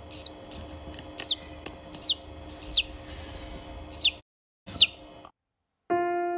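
Hatching chicken chick peeping: a run of about seven short, high peeps, each falling in pitch, roughly one every 0.7 seconds, over soft background music. The peeps stop after about five seconds, and piano music carries on after a brief silence.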